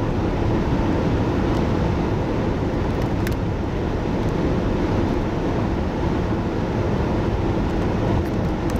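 Steady road and engine noise of a vehicle driving, with a few faint clicks.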